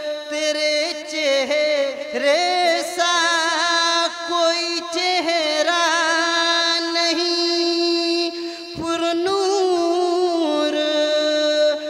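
A man singing a naat solo, with no instruments, into a microphone: long held notes with wavering, ornamented pitch, and a short break for breath about nine seconds in.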